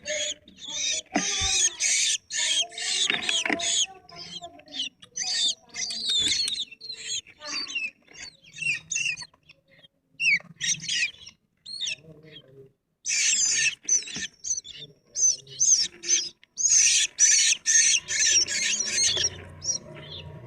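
Long-tailed shrike (cendet) singing: rapid, scratchy chattering phrases in quick bursts with short pauses between them. A low hum comes in near the end.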